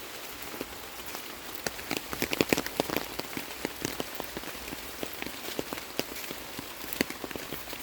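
Raindrops pattering: irregular sharp ticks over a steady hiss, thickest and loudest about two to three seconds in.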